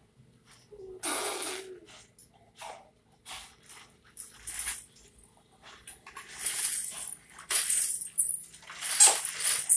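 Plastic baby walker rattling and clattering as its small wheels roll over a hard stone floor: scattered clicks at first, then a denser, louder run of rattles as it moves off.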